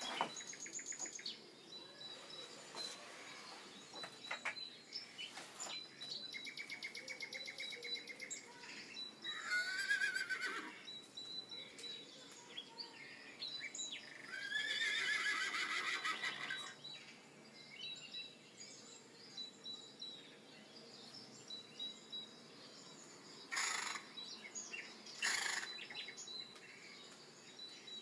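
Songbirds singing: rapid trills and chirps, with the loudest, fast-pulsed trills near the middle, over a faint, evenly repeating high tick.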